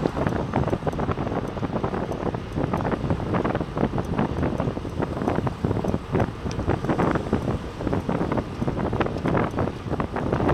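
Wind buffeting the microphone of a moving camera in loud, irregular gusts, over the road noise of car traffic driving alongside.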